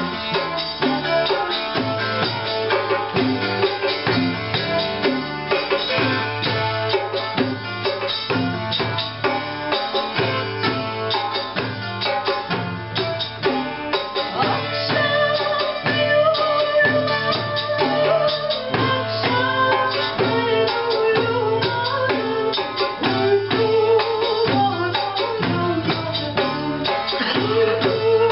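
Live Cypriot folk song played by a small band: a darbuka beating a steady dance rhythm, a hand-held frame drum, a plucked round-backed lute and an electric bass, with a woman singing the melody, most clearly from about halfway through.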